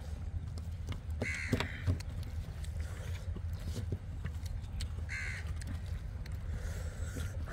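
A bird calling twice, once about a second in and again about five seconds in, over scattered soft clicks of hands working rice on steel plates.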